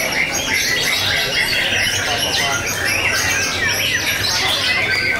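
Caged white-rumped shamas (murai batu) singing, a dense unbroken run of quick chirps and sliding whistles from several birds at once.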